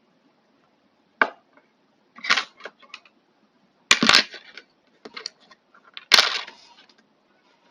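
Small hard objects and tools being handled and put down on a workbench: a series of sharp clinks and clatters, four louder ones with lighter clicks between.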